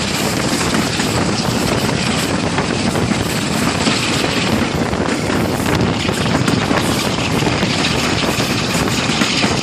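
British Rail Class 45 diesel locomotive's Sulzer twin-bank engine running under power, heard from the carriage behind it with heavy wind buffeting on the microphone. The sound stays loud and steady throughout.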